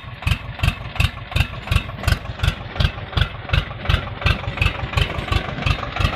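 Swaraj 724 FE mini tractor engine running while it pulls a rotavator through soil, heard as an even, heavy thumping about three times a second.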